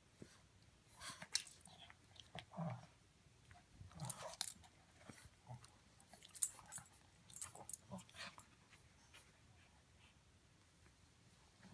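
Pekingese puppy biting and tugging at plush boxing-glove toys: irregular bursts of mouthing and fabric rustling, busiest in the first two-thirds, then dying away.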